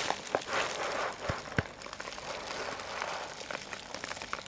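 Soft handling noise: paper and package rustling against a handheld camera, with a few small clicks.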